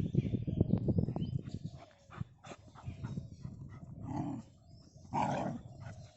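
Street dogs fighting: low, rough growling and snarling for about the first two seconds, then quieter, with two short pitched cries about a second apart near the end.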